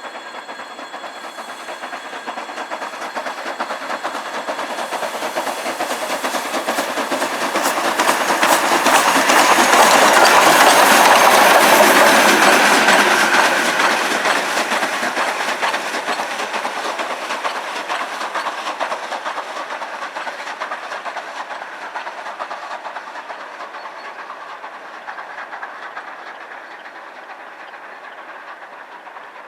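P36 steam locomotive passing close by: wheel clatter on the rails and steam hiss swell to a loud peak about ten to twelve seconds in, then fade slowly as it moves away.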